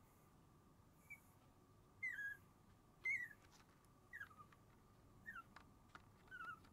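Sleeping Shiba Inu puppy whimpering: short high-pitched squeaks that fall in pitch, about one a second, the loudest around three seconds in.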